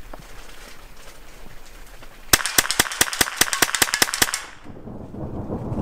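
A gun fired in one rapid burst of about fifteen sharp shots over some two seconds, about eight a second. A low rumble of thunder begins to build near the end.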